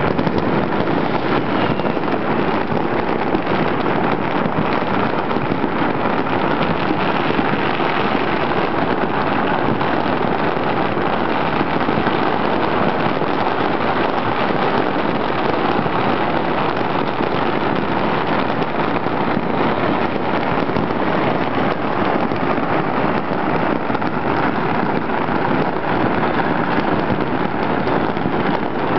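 Countless firecrackers and fireworks going off all over a city at once, blending into a steady, dense crackle.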